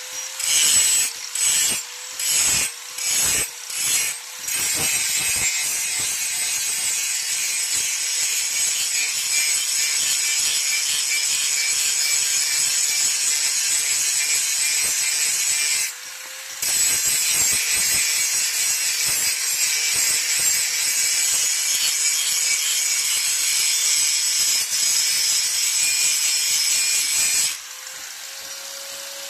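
A steel blade being abraded: about six separate rasping strokes, then a continuous high-pitched grinding rasp that breaks off briefly about halfway through and stops near the end.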